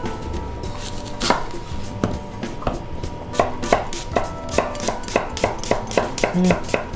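Chef's knife slicing an apple on a wooden cutting board, each cut a sharp knock of the blade on the board. A few spaced cuts at first, then a quicker, even run of about four a second in the second half.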